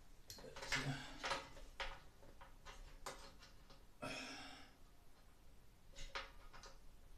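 Scattered clicks, knocks and scrapes of hands working inside a sheet-metal Broan 655 heater-fan housing in the ceiling, fumbling blind for a plug connector.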